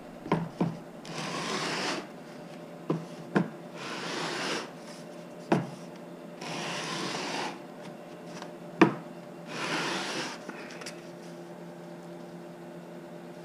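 Wooden strip being sanded on a long sanding block faced with stick-on sandpaper, in four slow rubbing strokes about three seconds apart. Short wooden knocks come between strokes, the sharpest near the end. The edge is being squared and cleaned of excess epoxy.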